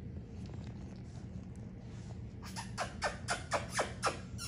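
American bully puppy giving a quick run of short, high yips, each falling in pitch, about four a second, starting about halfway through.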